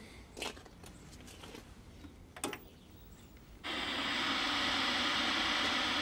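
A couple of faint clicks, then about three and a half seconds in a steady static hiss starts suddenly from the speaker of a 1987 Sony Trinitron KV-1326 portable colour TV as it powers up on an untuned channel.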